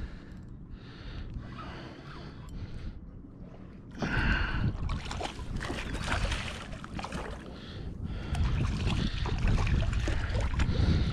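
Hooked shark thrashing and splashing at the water's surface, the splashing starting suddenly about four seconds in and running on as noisy churning water.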